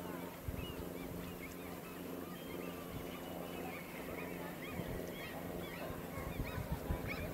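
A flock of geese honking, many short calls one after another, over a steady low hum. Wind buffets the microphone about half a second in and again near the end.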